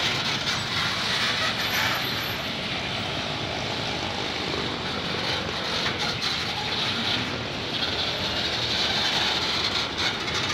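Empty freight gondola wagons of a bauxite train rolling past at steady speed: a continuous noise of steel wheels on rail with faint, irregular clicks.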